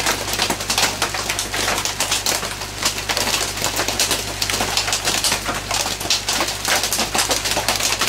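Heavy rain drumming on a tin roof: a dense, uneven patter of pops and clicks, over a steady low hum.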